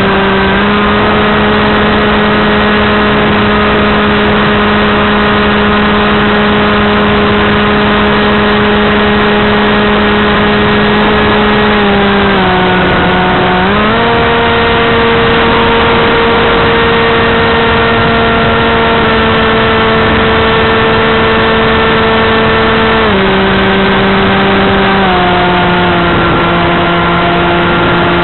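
Motors and propellers of a radio-controlled aircraft, heard up close from its onboard camera: a steady, loud hum whose pitch follows the throttle. It dips about halfway through, jumps higher, then steps down twice near the end.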